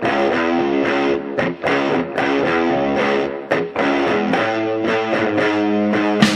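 Background music led by electric guitar, with changing chords and a steady beat.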